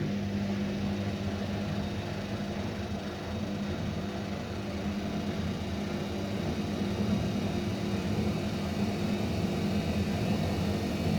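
Hotpoint-Ariston washing machine running up into its spin cycle: a steady hum and rumble from the motor and drum, building slightly toward the end. This humming noise is the fault being checked, which the owner thinks may come from something having got inside.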